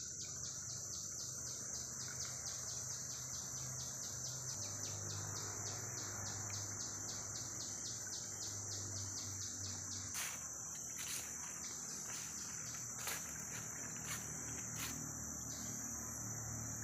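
Tropical forest insects droning in one steady, high-pitched buzz, with a fast, even pulsing chirp under it for the first half. A few separate soft clicks come in the second half.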